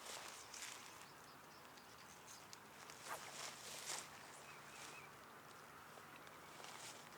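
Quiet outdoor ambience with a few faint, scattered rustles and clicks.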